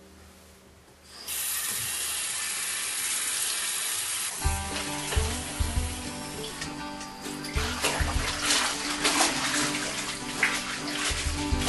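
A steady rushing, water-like noise starts suddenly about a second in. About four seconds in, music with deep drum hits comes in over it.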